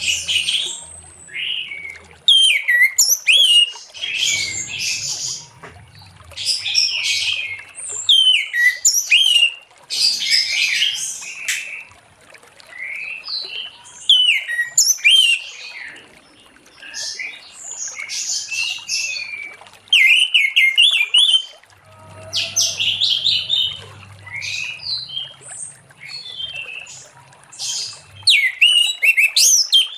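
Orange-headed thrush singing a long, varied song: quick phrases of high whistles, slurred notes and trills that come in bursts of a second or two, separated by short pauses.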